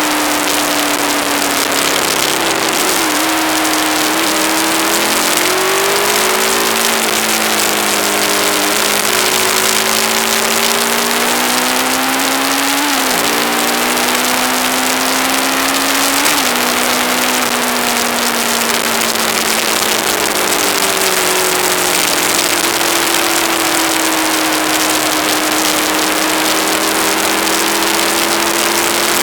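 Aprilia ETV1000 Caponord's V-twin engine running under way, its pitch rising and falling with the throttle, with sharp drops a little under halfway through and again a few seconds later, as at gear changes. A constant heavy hiss of wind and road noise sits over it.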